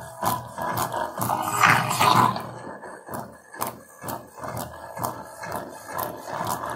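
A Mivi Play Bluetooth speaker playing a song while wet during a water test; the music comes through distorted, with a steady beat of about three strokes a second.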